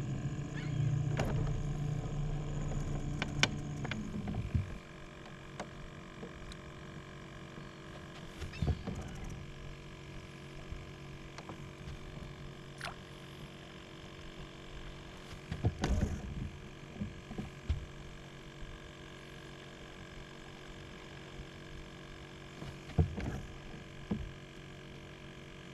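Small fishing boat sounds: a low steady hum that stops about four seconds in, then quiet with a few scattered knocks and taps.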